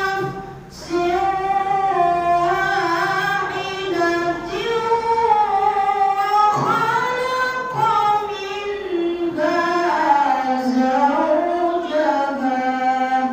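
A young boy's high voice reciting the Qur'an in melodic tilawah style: long, ornamented phrases that wind up and down in pitch, with a short breath pause about half a second in.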